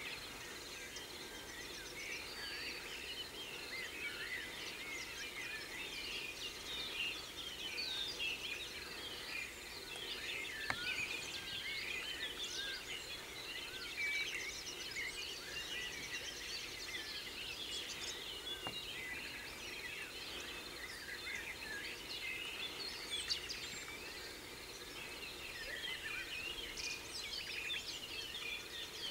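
Outdoor chorus of many birds singing at once, a dense, continuous mix of chirps and trills, over steady low background noise, with a couple of faint clicks.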